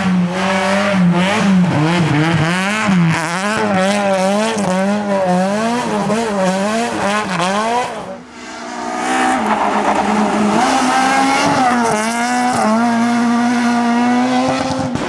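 A rally car's engine at high revs, its pitch swinging quickly up and down. After a sudden break about eight seconds in, an engine climbs and then holds a steady high note.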